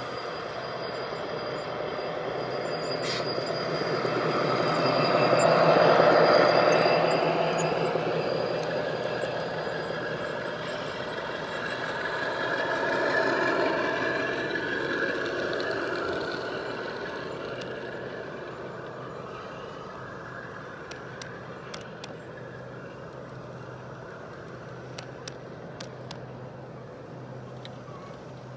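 G scale model train running past close by: a BNSF diesel locomotive's running sound swells to a peak twice and fades, then double-stack container cars roll by with light clicks of wheels over rail joints.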